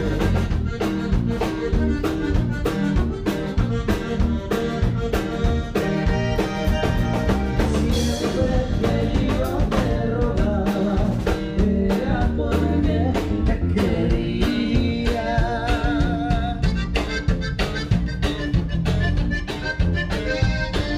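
Live conjunto music: an accordion carries the melody over guitar, bass and drums.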